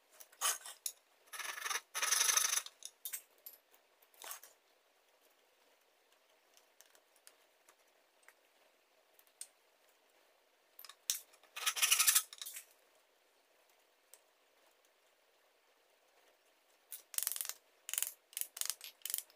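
Wooden slats clicking and scraping against a wooden lattice frame as they are handled and slid into place. Three clusters of light knocks and short rubbing scrapes come near the start, in the middle and near the end, with quiet between.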